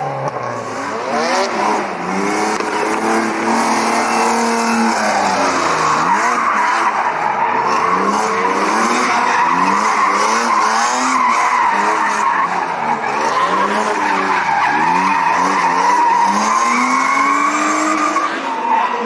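A rear-wheel-drive car drifting on asphalt: the engine revs up and drops again every second or two as the throttle is worked, over a continuous tyre squeal from the sliding rear tyres.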